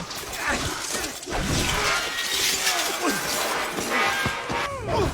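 Glass shattering and things crashing in a busy, continuous stretch of breakage and impacts.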